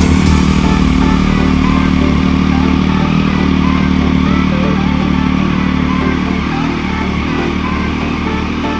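Triumph Street Triple's three-cylinder engine running through an aftermarket Akrapovič carbon silencer, holding a steady engine speed with a deep, even exhaust note.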